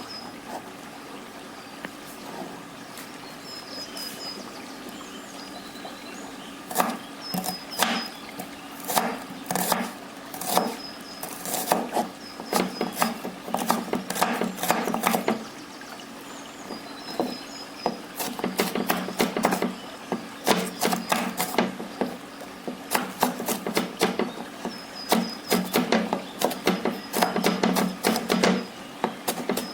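A knife chopping on a wooden cutting board: sharp knocks in quick, irregular runs that start about seven seconds in and pause briefly midway, over a steady low hum.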